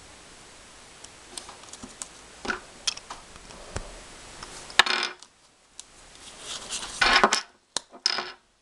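Small hard plastic and metal Beyblade top parts being handled, giving irregular clicks, clinks and short clattering knocks, with a sharp snap about five seconds in.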